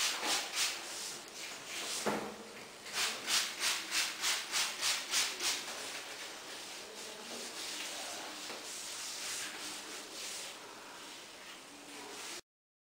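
Quick rhythmic swishing strokes, about three a second, then steadier rubbing, as Dead Sea water is sprayed and mud is spread over bare skin with a gloved hand. There is a single click about two seconds in.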